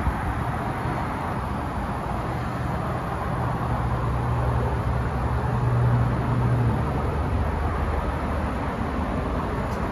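Steady low rumble of motor-vehicle noise, with a low hum that swells for a few seconds in the middle and then fades back.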